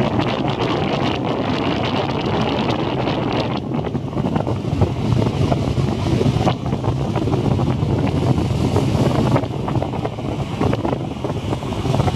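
Sea surf washing onto the shore in strong wind, with wind buffeting the microphone and making a heavy low rumble. The wash swells and eases every few seconds.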